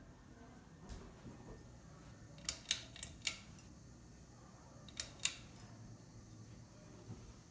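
Sharp mechanical clicks from a ceiling fan's speed switch, four in quick succession and then two more a couple of seconds later, as the speed is changed, over the faint low hum of the fan running.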